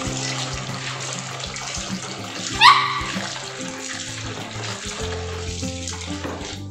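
Kitchen tap running into a stainless steel bowl as a hand swishes and rubs dried fruit in the water to wash it. A brief, loud rising squeak sounds about two and a half seconds in.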